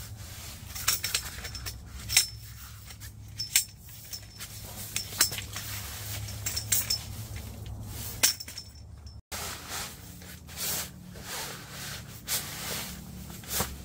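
Camp cot poles clinking and knocking together as the frame is fitted, several sharp clinks with a short metallic ring. After a brief break about nine seconds in, softer strokes follow as the poles are worked into the cot's fabric sleeves.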